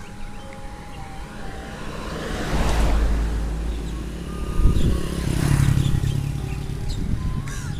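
A motor vehicle passes close by on the road: its engine and tyre noise swell to a peak about three seconds in, peak again around five to six seconds in, then fade.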